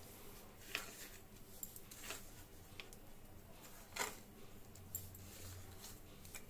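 Fingers gathering chopped onion off a wooden chopping board and dropping it into a bowl of batter: faint scattered taps with a few sharper ticks, the clearest about four seconds in.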